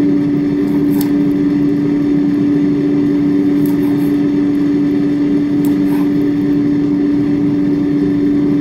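Air fryer fan running with a steady low hum, while a knife slicing conch meat gives a few light taps on a wooden cutting board.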